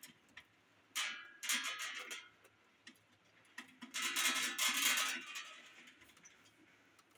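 Metal clattering and scraping in two bursts, one about a second in and a longer one around four seconds in, as a ceiling fan blade and its fittings are handled during assembly.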